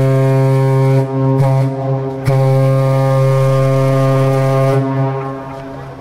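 Steam whistle of the steam pile driver No. 4 blowing one long, low, steady note. It wavers briefly about a second in and fades near the end.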